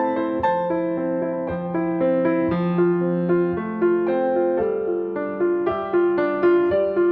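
Background piano music: a gentle melody of struck notes over sustained bass notes.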